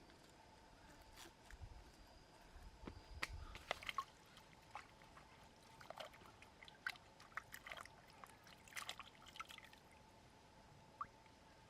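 Faint splashes and drips of water with scattered light clicks and knocks, mostly through the middle of the stretch.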